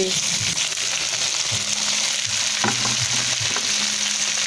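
Small chopped tomatoes frying with sautéed garlic and onion in hot oil in a frying pan: a steady sizzle, with one light knock about two and a half seconds in.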